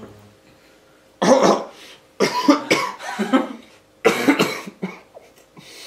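A man coughing in three harsh fits, the middle one the longest, as a glob of horseradish catches at the back of his throat.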